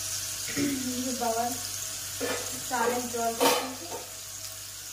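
A quiet, indistinct voice in a few short phrases over a steady hiss, with one sharp clack about three and a half seconds in.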